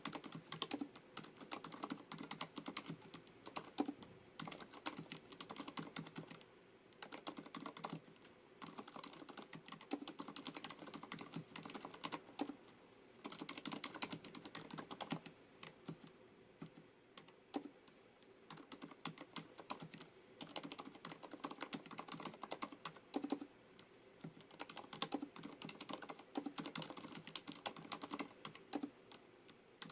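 Continuous fast typing on a FILCO Majestouch MINILA-R Convertible compact mechanical keyboard with Cherry MX Silent (dampened) switches: rapid, soft key clicks, with a few brief pauses between bursts.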